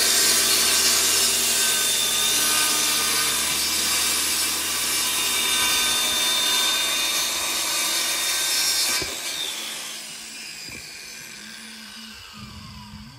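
Corded circular saw cutting through grooved plywood siding, a loud steady sawing noise. About nine seconds in the cut stops abruptly and the blade winds down with a falling whine.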